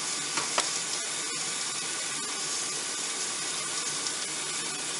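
Red bell pepper pieces brushed with olive oil sizzling on a hot electric contact grill, a steady hiss, with a few light clicks in the first second or so.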